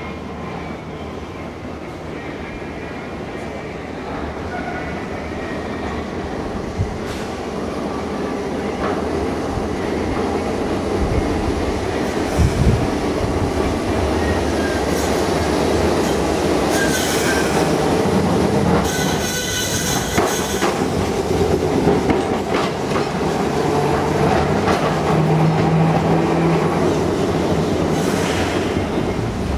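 Heritage electric streetcar, a replica Birney car, running along street track and growing steadily louder as it approaches. Its wheels squeal in short high-pitched spells partway through and near the end.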